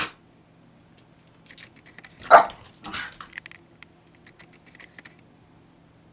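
A Shiba Inu barking: a sharp bark right at the start, a loud bark a little over two seconds in and a softer one just after. Short runs of rapid clicking come between the barks.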